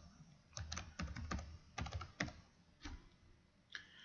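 Computer keyboard being typed on, faint clicks of keys in a few short, uneven runs.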